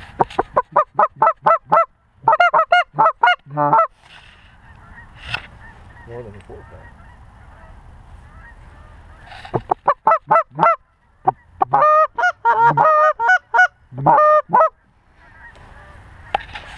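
Loud, close Canada goose honks and clucks in quick runs of several notes a second, in two bouts with a pause of about five seconds between them.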